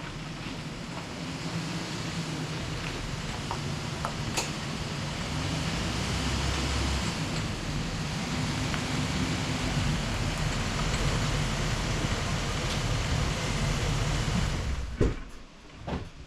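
2005 Ford pickup truck's engine running with road and wind noise as it drives, its pitch rising and falling a little. Near the end the noise drops away sharply, with two sharp knocks.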